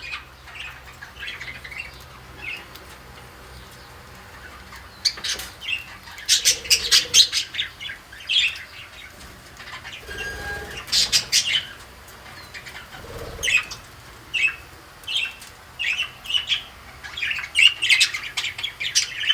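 Budgerigar chirping and squawking in many short, harsh bursts, busiest in clusters in the middle and near the end.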